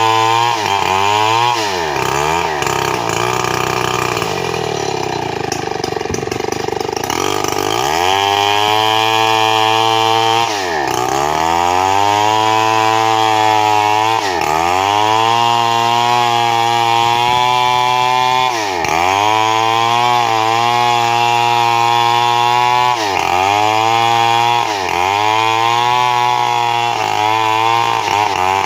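Stihl 070 two-stroke chainsaw running at high revs as it cuts a wide gmelina board. Its pitch sags again and again under load and climbs back, with one longer stretch of lower pitch a few seconds in.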